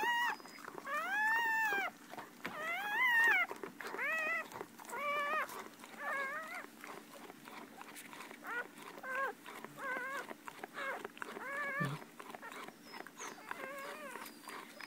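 Newborn Shetland sheepdog puppies crying in a string of short, high squeals that rise and fall in pitch, loudest in the first few seconds and fainter and quicker later. A single soft thump comes near the end.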